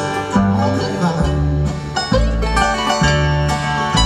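Bluegrass band playing live through a PA, heard from far back in the audience: banjo and guitar over a bass line that moves note by note, an instrumental stretch between sung lines.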